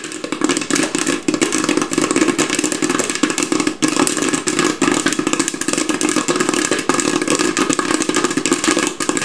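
Electric popcorn popper making popcorn: kernels popping in a dense, irregular crackle over the steady hum of the popper running.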